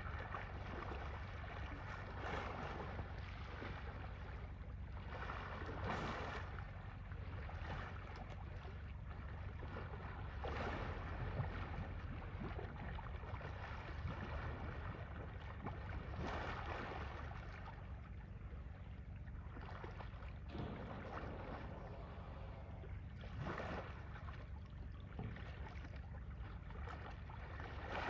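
Water sloshing and splashing in swells every few seconds as Asian elephants move about in a muddy pool, over a steady low rumble of wind on the microphone.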